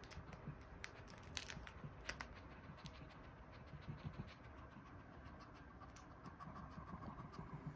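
Faint rustling and scratching of a chihuahua nosing and pawing at a plush fabric puzzle toy, with a few light scattered clicks.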